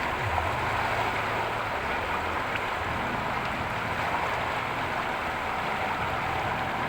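Fast-flowing river water rushing steadily in a strong current, with a low steady rumble underneath.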